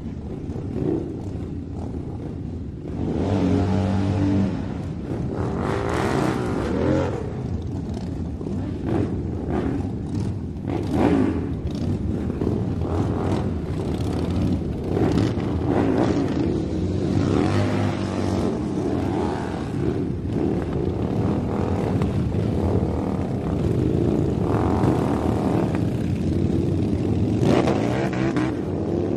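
Toy radio-controlled rock crawler's electric motors and gearboxes whining as it drives over dirt, the pitch rising and falling several times with the throttle.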